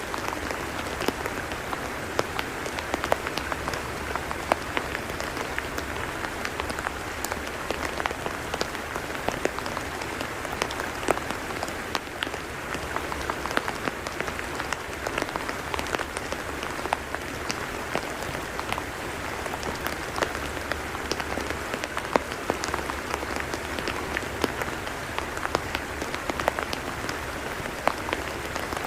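Steady rain falling on a wet tidal mudflat, with many separate drop impacts clicking sharply against a continuous hiss.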